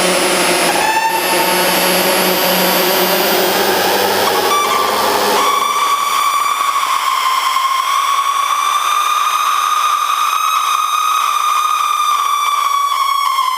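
Homemade light-controlled noise and drone synthesizer circuit on a breadboard, its pitch set by the light falling on it. It puts out harsh, dense noise with clustered tones, then about five seconds in switches abruptly to a single high drone with overtones whose pitch slowly wavers.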